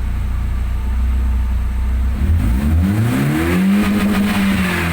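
BMW E36 316i's 1.6-litre four-cylinder engine idling steadily, then revved up about two seconds in, its pitch climbing to a peak and starting to fall back toward idle near the end. The engine has a freshly cleaned idle control valve and holds the rev without stalling.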